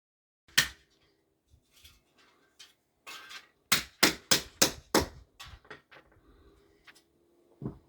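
Hammer-like knocks from building work: a single hard blow, then a quick run of five blows about three a second, with lighter taps after and one more blow near the end.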